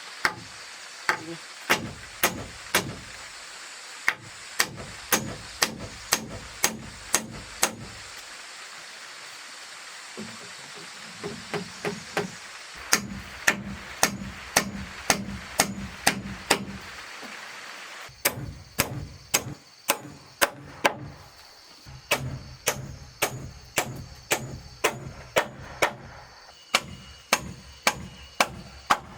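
Repeated hard strikes on wood, about two a second, in runs broken by short pauses, each hit ringing briefly and low.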